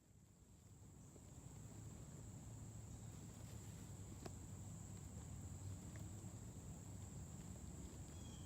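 Faint steady high-pitched insect drone, over a low rumble, with a couple of faint clicks.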